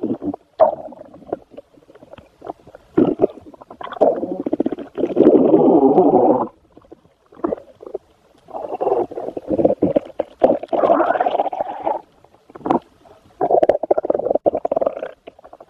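Stomach growling sound effect: irregular bursts of rumbling and gurgling, the longest lasting a few seconds, separated by short gaps.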